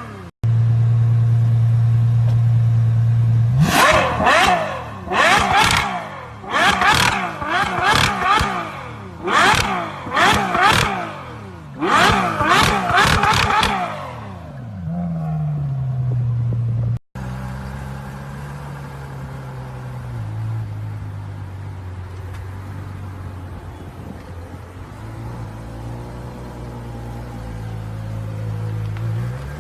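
Ferrari 812 Superfast's 6.5-litre V12 held at a steady note, then revved in a quick series of about eight blips, each rising and falling in pitch, before dropping back to idle. After a cut it idles more quietly, and a new rev begins at the very end.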